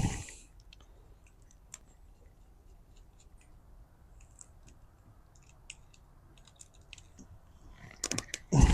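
Scattered light clicks and scrapes of hand-stripping heavy-gauge power-cord wires with an X-Acto knife, with a loud crunching burst near the end.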